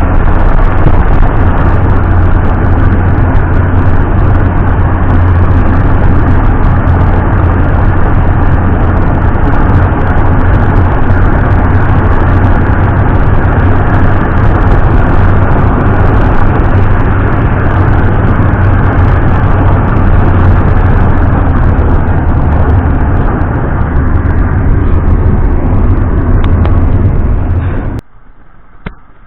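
Steady, loud noise of a moving road vehicle: engine and road noise with a strong low rumble. It cuts off suddenly near the end, followed by a single click.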